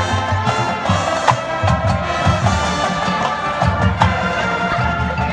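High school marching band playing a field show: brass, including sousaphones, sustaining chords over steady bass drum strikes and a few sharp percussion accents.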